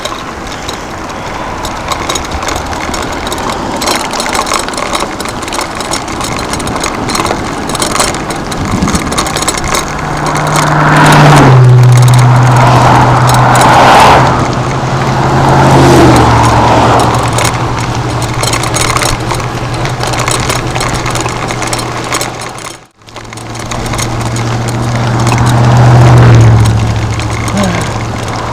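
A vehicle engine running on the move, its low hum dropping in pitch in steps, under a rush of wind and road noise.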